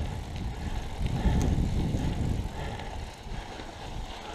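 Mountain bike riding along a dirt forest singletrack: a rough, low rumble of tyres and rushing air, louder for about a second and a half starting a second in, with a few light clicks.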